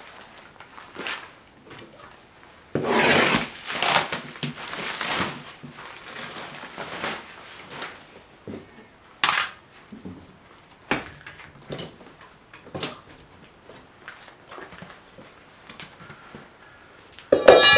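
Plastic stretch wrap being cut and torn off a plywood shipping crate, a long rustling tear, followed by scattered knocks and clicks as the crate is pried open. Near the end comes the loudest sound, a sharp metallic clang that rings briefly.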